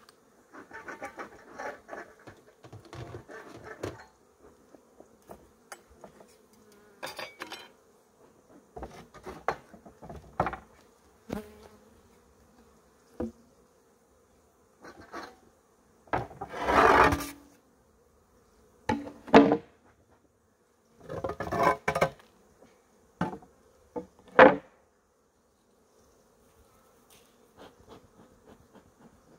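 Honeybees buzzing in a steady hum around an open hive, with wooden scrapes and knocks as the hive's parts are handled; several louder scrapes come in the second half, one lasting about a second just past halfway.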